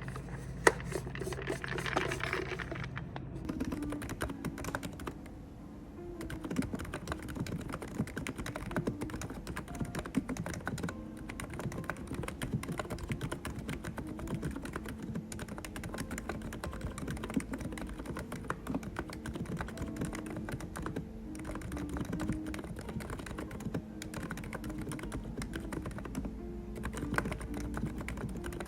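Continuous, rapid typing on an ABKO KN30BT keyboard, a dense stream of uneven key clicks.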